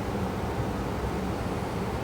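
Steady low rumbling hiss that stays even throughout, with no rise and fall of breathing or snoring.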